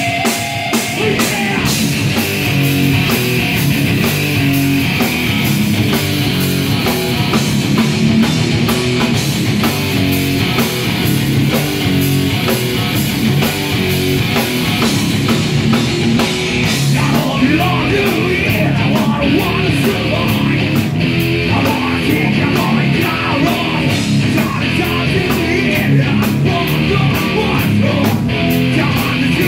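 Live heavy rock band playing loud: distorted electric guitar and bass over fast, busy drumming on a full kit.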